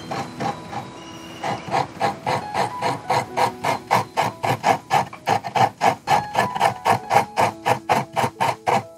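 A halved coconut scraped by hand against a metal coconut scraper, grating the flesh in rapid rhythmic rasps, about three to four strokes a second, with a short pause about a second in.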